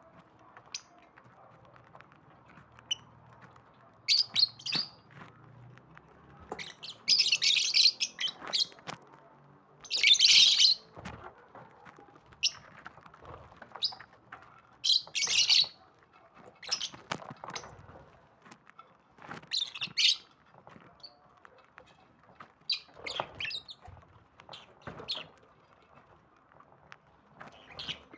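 Lovebirds chirping and calling in irregular high-pitched bursts, some about a second long, with the loudest call about ten seconds in.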